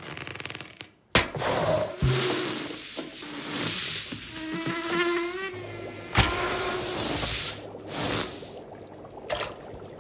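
Cartoon sound effects: a short buzz at the start, then several sharp hits (the loudest about a second in, another near the middle), with hissing throughout and a short wavering pitched squeal about halfway.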